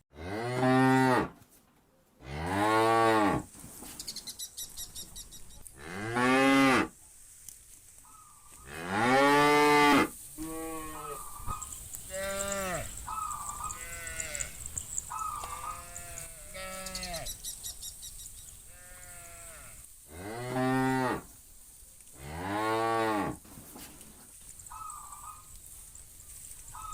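Cattle mooing: six loud, long moos, the first four close together and two more later, with many shorter, fainter, higher-pitched calls from other animals in the herd in between.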